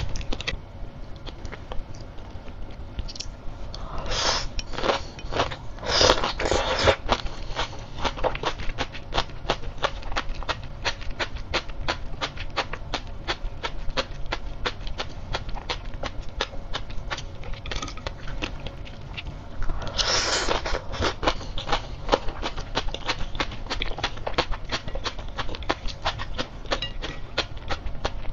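Close-up chewing of crisp sea grapes, a dense run of tiny pops and clicks as the beads burst in the mouth. Louder, noisier bursts come about four to seven seconds in and again at about twenty seconds.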